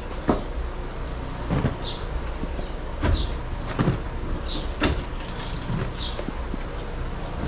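Dairy barn at feeding time: a steady low machine hum under about seven scattered knocks and clanks. Faint short high chirps come every second or so.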